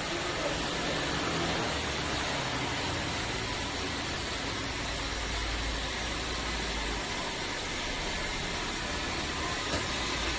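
Artificial rain from an overhead water-spray leak-test rig pouring steadily onto a car's roof and windows: a constant hiss of falling water, with a low hum underneath.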